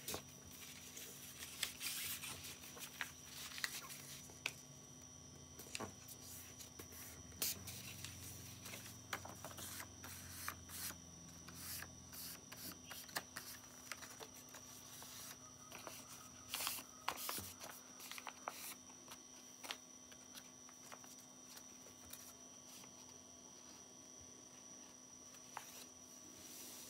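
Sheet of paper being handled, folded and creased, making faint irregular rustles and crinkling clicks over a steady low electrical hum and a thin high whine.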